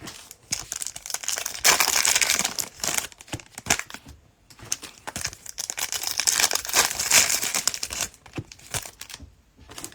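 Cellophane wrapper of a trading card pack crinkling and tearing as it is opened and crumpled by hand. It comes in two long stretches, with a short break about four seconds in and another near the end.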